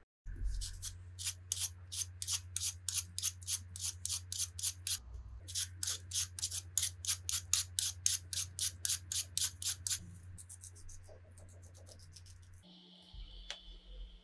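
A vegetable peeler scraping the skin off a raw potato in quick, regular strokes, about three or four a second, with a short break about five seconds in. The strokes stop about ten seconds in, and a few lighter clicks follow.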